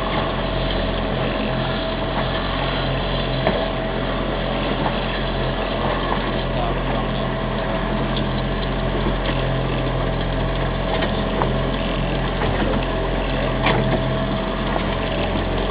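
Fishing boat's engine running steadily, a continuous drone with a thin, steady whine over it.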